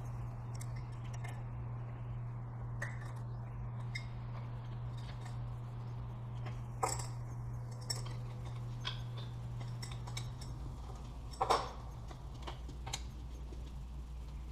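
A few scattered light clinks and taps, the sharpest about two thirds of the way through, over a steady low hum.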